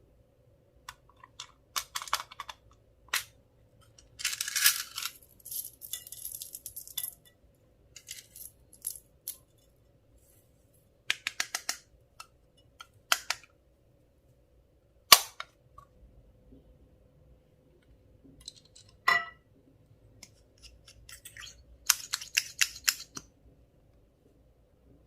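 Small items being handled close to the microphone: scattered sharp clicks and taps, with a few short crackling, rustling spells, the sharpest click about fifteen seconds in.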